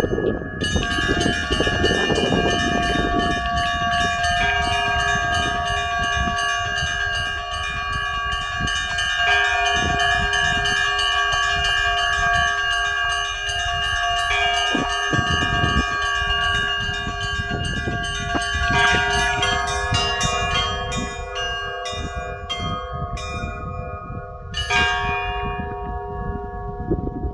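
Church bells being rung, many strikes in quick succession with their tones ringing on over one another. The ringing thins out a little near the end.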